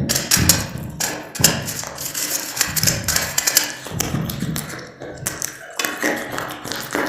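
Crisp biscuits crunching close to the microphone: a dense run of sharp crackles and taps that eases briefly about five seconds in.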